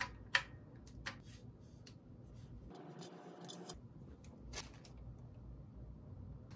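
Sharp plastic clicks of a Rhinox electric kettle's on/off switch lever being flicked, several in the first second and a half. About three seconds in comes a short rustle of a sticker being peeled off the kettle, and a single click or knock follows near the fifth second.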